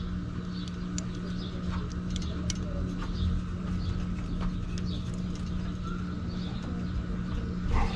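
A steady low mechanical hum with scattered light clicks.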